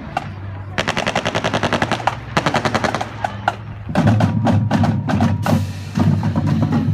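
Marching band playing: the drumline beats a fast, rolling cadence, then the brass and saxophones come in loud about four seconds in, with low horn notes under the drums.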